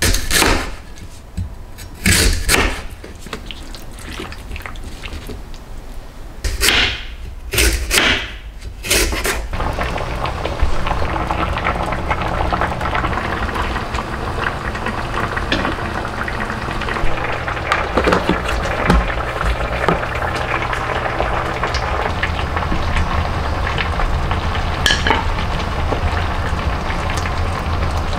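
A kitchen knife slicing through raw lotus root onto a wooden cutting board: five separate crunchy cuts in the first ten seconds. After that, lotus root slices simmering in water in a pan on the hob, a steady bubbling with light crackle.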